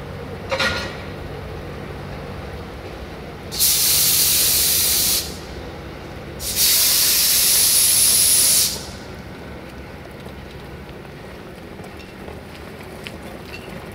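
Two loud hisses of compressed air venting from a 060-EA electric locomotive's air system, one about a second and a half long and the next about two seconds long, a second apart, over a low steady hum.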